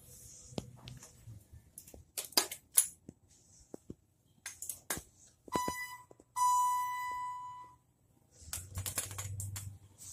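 Inside a ThyssenKrupp traction elevator car: scattered clicks and knocks, then a short electronic beep about five and a half seconds in, followed by a longer steady beep lasting about a second and a half. Near the end a low rumble with clicks as the car doors close.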